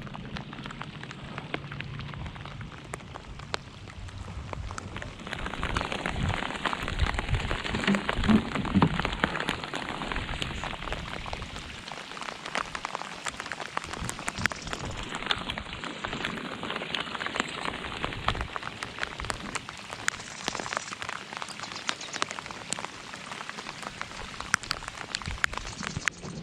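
Steady rain falling, a dense mix of individual drop hits that grows a little louder about five seconds in.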